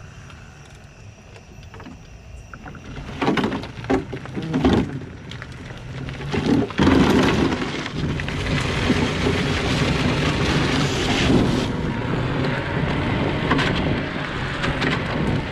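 Electric-converted shifter go-kart pulling away and speeding up, with no engine note: wind buffeting the onboard microphone and tyre noise on pavement. It comes in short gusts from about three seconds in, then turns loud and steady from about seven seconds in.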